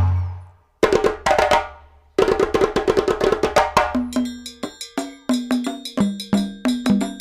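Upbeat background music with quick wood-block-like percussive hits and a bass line. It fades out at the start, pauses briefly, then starts up again about two seconds in.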